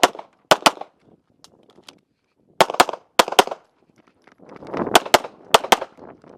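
Handgun shots fired in quick pairs (double taps), about eleven shots in all, with short pauses between the pairs.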